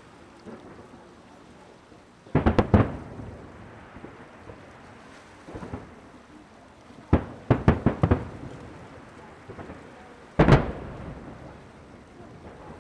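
Aerial fireworks shells bursting in quick clusters of sharp bangs, about two and a half seconds in, again around seven to eight seconds, and once more about ten and a half seconds in, with a low rumble and fainter pops between.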